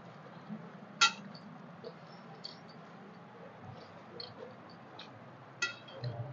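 Eating rice and curry by hand from stainless steel plates: small clicks and mixing sounds, with two sharp metal clinks, one about a second in and one near the end.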